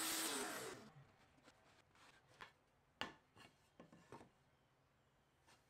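DeWalt compact router winding down after a dado cut, its pitch falling until it stops about a second in. Then a few light wooden knocks and rubs as the routed panel is handled and lifted from the jig.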